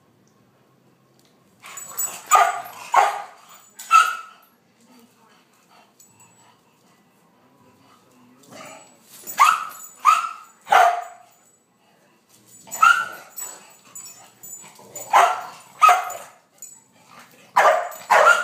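Dog barking in short bursts of one to four sharp barks, several times over, with quiet gaps of a few seconds between them.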